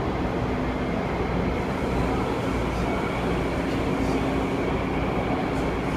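Metro train running, heard from inside the car: a steady low rumble with a faint hum.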